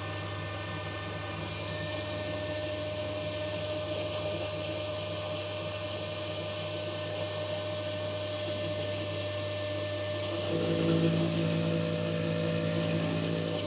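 Metal lathe running while an external turning tool cuts a 17-4PH stainless steel collar, an interrupted cut taking the diameter down. A steady hum runs throughout; about eight seconds in a hiss joins, and after about ten and a half seconds a steadier, higher cutting tone comes in. The chips coming off are hard.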